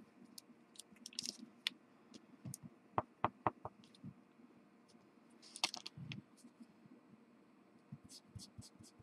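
Faint scratching and rubbing of a blending tool worked over Gelato colour on twill fabric, in short irregular strokes with two brief scuffs. A quick run of four light clicks comes about three seconds in.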